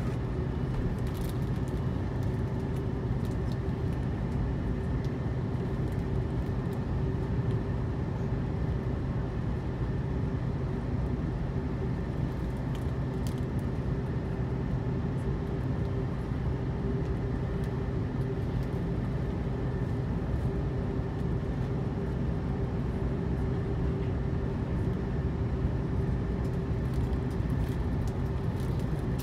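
Steady cabin noise inside an Airbus A330-300 airliner on the ground before takeoff: a low rumble with a constant hum and a few faint ticks, with no rise in power.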